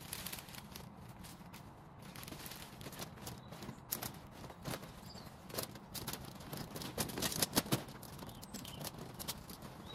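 Hand work in an overgrown shrub border: irregular sharp clicks, snips and rustles of branches being cut and handled, with a quick run of louder snaps about seven seconds in.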